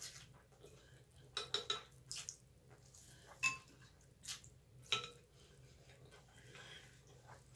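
Faint eating sounds from a bowl of pho: slurps of rice noodles, and light clinks of utensils against a glass bowl, two of which ring briefly about three and a half and five seconds in.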